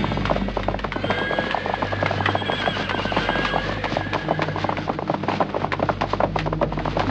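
Film fight-scene audio: a fast, dense run of sharp hits and clacks, many a second, over background music.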